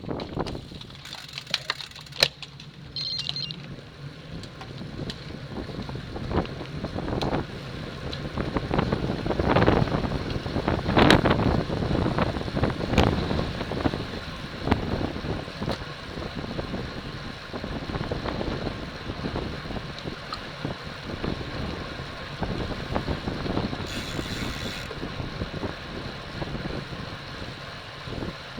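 Wind buffeting the microphone of a camera mounted on a racing bicycle, a rushing noise that swells and fades, with a few sharp clicks.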